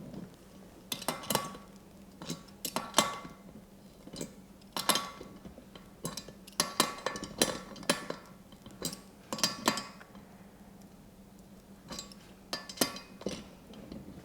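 Hand tools clinking and knocking on the steel frame of a car dolly while its caster wheels' bolts are tightened down: irregular clusters of sharp metallic clicks, some ringing briefly, over a faint steady hum.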